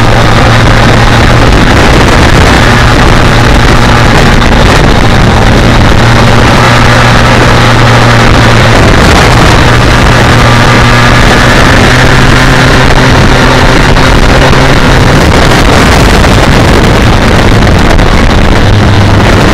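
BMW K1200R Sport's inline-four engine pulling at a steady mid-range cruise, heard from on the bike with heavy wind rush over the microphone. The engine note holds even and drops slightly in pitch near the end.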